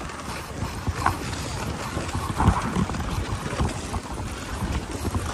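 Dog sled gliding over packed snow: the runners hiss and scrape, with wind rushing over the microphone and uneven low bumps.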